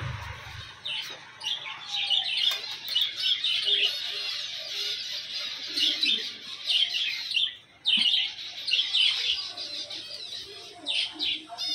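Many small birds chirping and chattering over one another in quick, continuous chirps, with a brief pause about eight seconds in.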